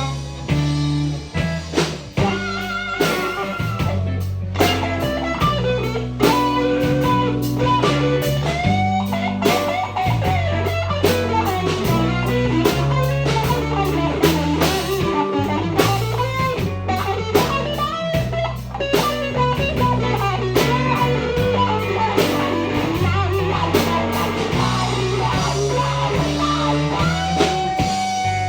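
Live blues-rock band playing an instrumental break: bass and drum kit under bending lead electric guitar lines.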